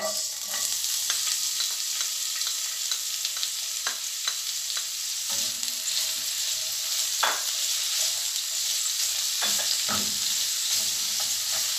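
Sliced red onions sizzling in hot vegetable oil in an aluminium frying pan, the sizzle starting suddenly as they drop in and then running steadily while they are stir-fried. Now and then the metal utensil clicks and knocks against the pan.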